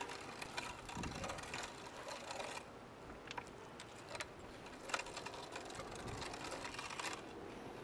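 Hand-cranked metal meat grinder being turned as it grinds chopped iguana meat, the auger and crank giving a rasping grind with irregular clicking.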